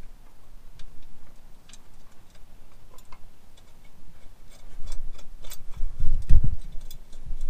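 Scattered small metallic clicks and taps of a bolt and bracket being fitted by hand at a carburetor's throttle linkage, irregular rather than a steady rhythm. A dull thump comes about six seconds in, the loudest sound.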